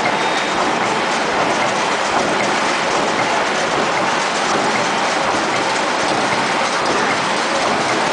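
TLHQ-1300 roll-to-sheet paper cutting machine running steadily, cutting duplex paperboard from the roll into sheets.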